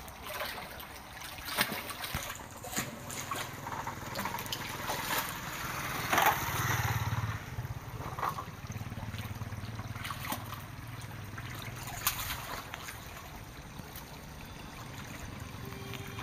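Water sloshing and trickling at the bank, with scattered sharp clicks and rustles and a louder rush of noise about six seconds in.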